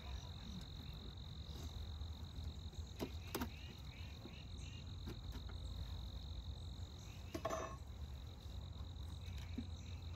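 Outdoor insect chorus: a steady high-pitched drone with groups of short repeated chirps, over a low rumble, with a couple of faint knocks.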